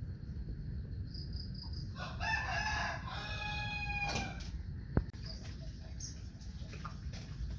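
A rooster crowing once, about two seconds in, over a steady low background rumble. A single sharp knock follows about five seconds in.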